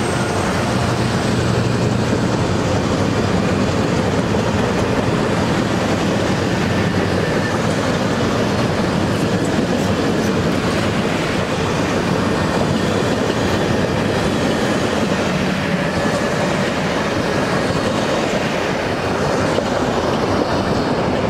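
Canadian Pacific passenger train cars rolling past on the rails, making a steady, loud noise of steel wheels on track.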